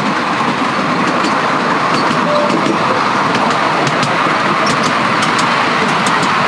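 7.25-inch gauge miniature railway train running, heard from aboard an open passenger carriage: a steady rumble of wheels on rail, with scattered light clicks that come more often in the second half.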